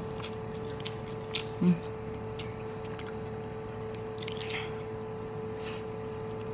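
Soft wet chewing and lip smacks of a person eating fried instant noodles by hand, a few scattered clicks and smacks, over a steady electrical hum.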